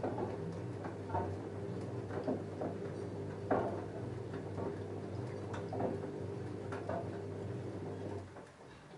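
LG F10A8HDS5 front-loading washing machine drum turning during the wash, with a steady motor hum under irregular knocks and clinks from the tumbling load of jeans. The drum stops about eight seconds in.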